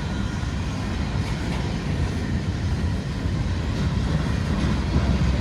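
Freight cars of the CSX mixed freight train M427 rolling past: a steady rumble of steel wheels on the rails.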